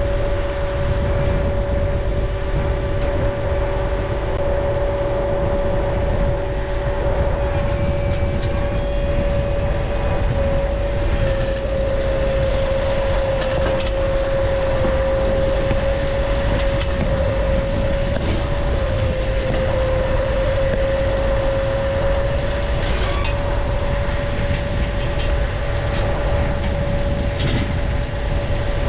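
Vehicle engine running steadily, heard from inside the cab, with a constant whine over a low rumble.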